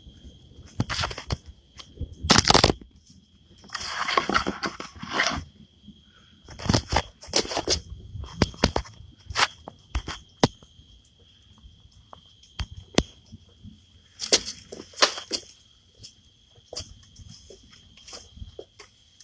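Irregular clicks, knocks and short rustling noises, some loud and sharp, with a faint steady high tone behind them.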